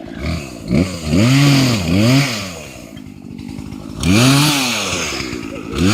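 Two-stroke chainsaw engine revving up and dropping back several times: two quick throttle bursts, a spell of lower running, then a longer rev that falls away near the end.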